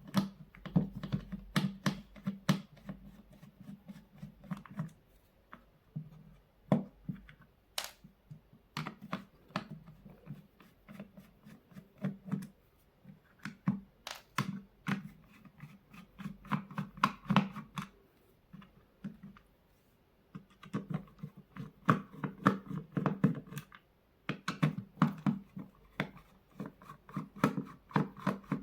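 The plastic housing of a cordless drill being unscrewed and pried apart by hand: a steady run of small clicks, scrapes and rattles of plastic and screws, pausing briefly twice.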